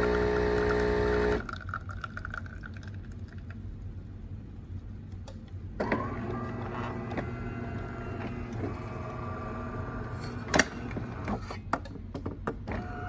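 DeLonghi Magnifica ESAM3300 espresso machine's pump humming steadily while dispensing coffee, cutting off sharply about a second and a half in as the brew ends. Later a softer steady machine tone follows, with scattered clicks and knocks.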